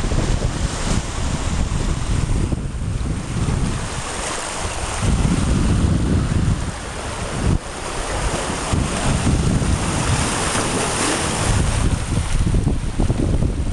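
Sea surf washing and breaking over a rocky shore, with the foam hissing more strongly in the second half. Heavy wind buffets the microphone throughout.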